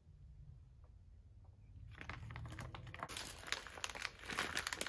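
A clear plastic bag of loose copper bullets crinkling and rustling as it is handled, starting about two seconds in and getting louder.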